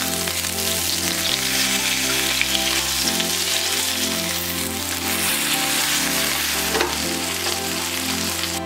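Flour-dusted salted mackerel fillets sizzling in olive oil in a nonstick frying pan, fried to a golden brown. Soft background music with slow chord changes plays underneath.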